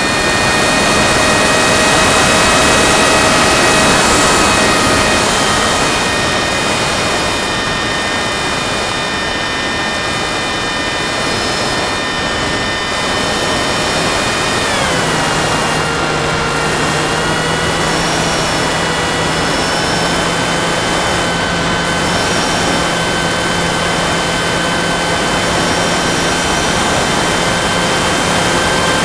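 Onboard audio of an FPV model plane in flight: the motor and propeller running with a steady high whine over a rush of wind noise. About halfway through, the whine drops in pitch as the throttle is eased back, then holds at the lower pitch.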